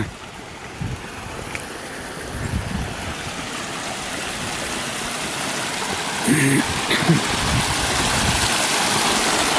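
Small mountain stream splashing down a narrow rocky channel, a steady rush of water that grows louder as it is approached.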